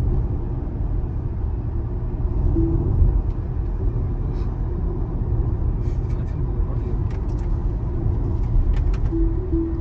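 Road and tyre rumble inside the cabin of a moving Tesla Model Y dual-motor electric car, steady and low with no engine note. A few brief faint tones come through about two and a half seconds in and twice near the end.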